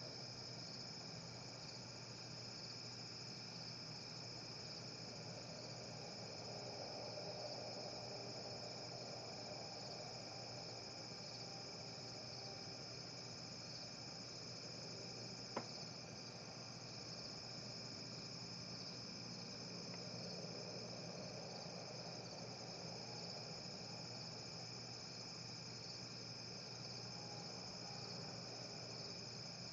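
Steady high-pitched chirring of crickets on a late-summer night. Beneath it a fainter, lower drone swells up and fades away twice. A single sharp click comes about halfway through.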